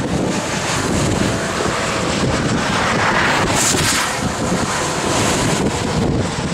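Strong wind buffeting the microphone, with semi-trucks passing close by on the highway. The rush of one tractor-trailer's tyres and air swells about three to four seconds in.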